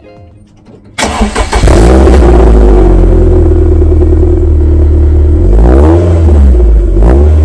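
2006 MG TF's four-cylinder engine heard loud and close at the tailpipe: it starts abruptly about a second in and runs at a steady idle, then is revved briefly twice near the end.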